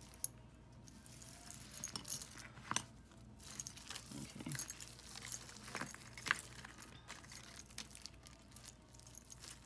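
Loose pieces of jewelry clinking and jangling as they are handled and sorted, with irregular small metallic clicks scattered throughout.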